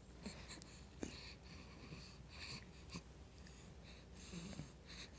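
A pet's faint, snuffly breathing: soft breathy puffs and snorts through the nose, several times.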